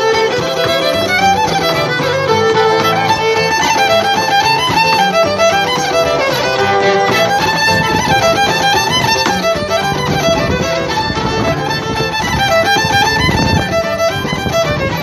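Fiddle playing a quick tune with a Roland RD-700 stage piano accompanying, and a step dancer's hard shoes striking a wooden deck in time.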